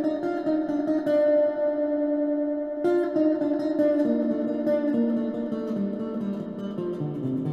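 Electric guitar instrumental music: plucked notes ring and sustain, with new notes struck about a second in and again near three seconds, then a run of shorter notes stepping up and down in pitch.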